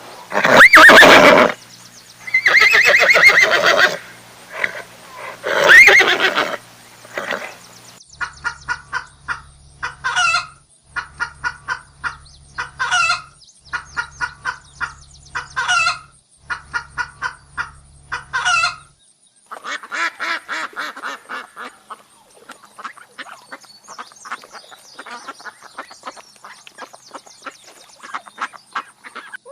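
A run of farm animal calls: several loud calls in the first eight seconds, then quick runs of clicking notes each ending in a sweeping squawk about every three seconds, then fainter chattering near the end.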